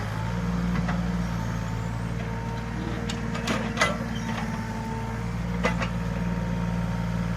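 Komatsu PC20 mini excavator's diesel engine running steadily, with a steady higher whine over it. A few sharp knocks come around the middle.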